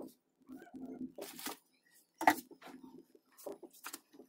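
Handling noise: a series of sharp clicks and rustles as the battery leads are moved about inside an open plastic UPS case. The sharpest click comes a little over two seconds in.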